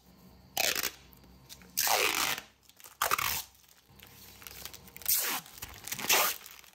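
Thin dark plastic back-panel sheet for a 3D printer being handled and flexed, giving about five short crinkling, crackling noises.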